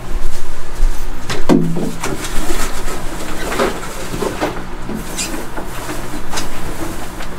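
Handling noise at glass terrariums: scattered knocks, scrapes and rustles, with a brief low squeak about a second and a half in.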